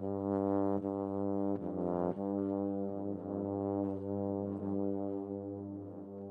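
Euphonium playing long held notes over a looped, layered drone of its own sustained tones. A new note enters at the start and another briefly changes pitch about two seconds in, while the low drone holds steady underneath.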